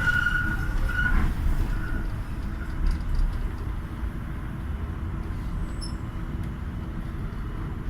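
Docklands Light Railway train running on the track, a steady low rumble with a high wheel squeal in the first second or so that fades away, the rumble easing off gradually.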